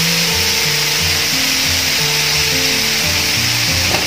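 Background music with a stepping bass line over a steady hiss of masala-coated seer fish (kingfish) steaks sizzling in oil on a flat iron tawa.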